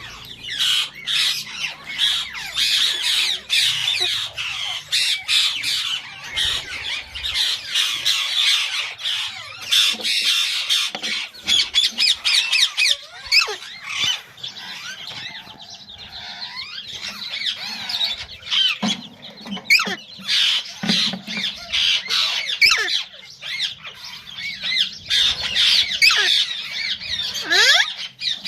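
Alexandrine parakeets squawking and chattering continuously: harsh, rapid calls with quick rising and falling pitch.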